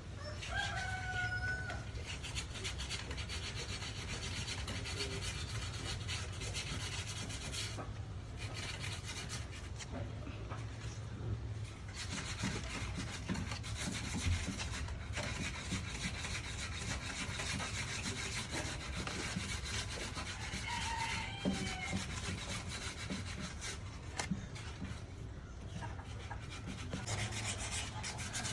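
Putty blade scraping and spreading two-part body filler into gaps in a wooden chair: a continuous rasping scrape of metal over wood and filler.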